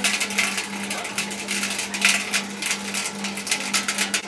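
Cotton candy machine running: its spinning head makes a low hum that pulses about three times a second, under a busy crackling and ticking.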